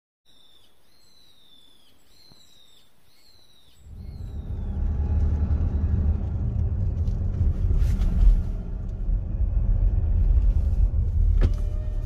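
For the first few seconds a high, falling call, most likely a bird's, repeats about six times over quiet background. About four seconds in, a car's steady low road rumble takes over, heard from inside the cabin as it drives along.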